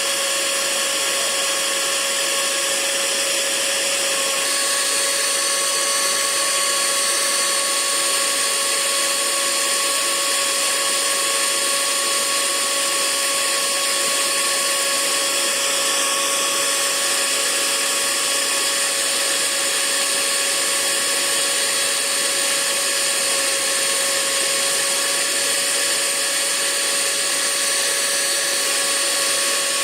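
Hair dryer running steadily: a constant rush of air with a high, even motor whine.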